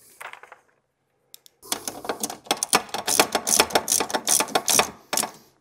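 Rapid clicking from a hand ratchet turning the hex bolts that hold a front brake caliper, in a run of about three and a half seconds that stops shortly before the end.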